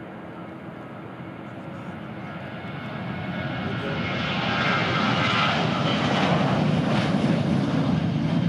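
Boeing 737 airliner's twin jet engines at takeoff thrust during the takeoff roll, growing steadily louder as it passes and rotates. A whine rides on top of the rumble.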